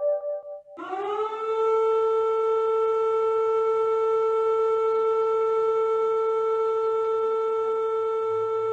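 Emergency warning siren tone: it comes in about a second in with a quick upward slide, then holds one steady, loud pitch.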